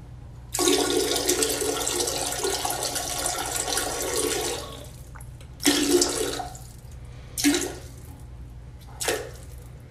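Water running, like a tap or a flush, for about four seconds, then three shorter bursts of the same rushing noise.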